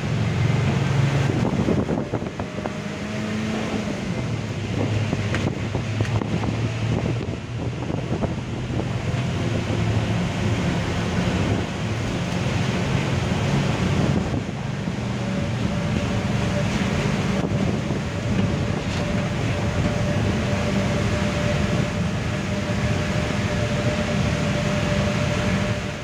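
Steady low mechanical rumble of heavy mining-plant machinery or engines, with a thin steady whine joining about halfway through.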